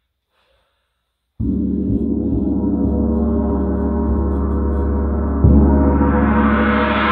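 Large Paiste gong struck twice with a soft mallet, about one and a half seconds in and again about four seconds later. It rings with a deep hum under many layered overtones, and after the louder second stroke the high shimmer swells and spreads upward.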